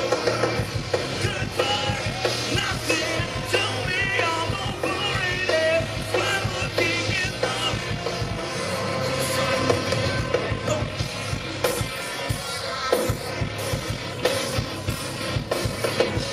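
A rock band playing live, with a lead singer's wavering vocal over a steady bass line and drums.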